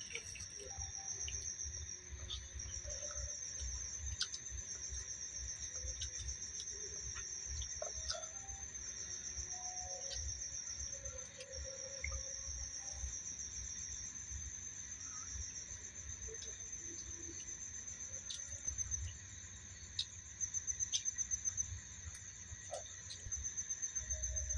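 Crickets chirping in a steady, high-pitched pulsing trill, with a low rumble underneath that strengthens near the end.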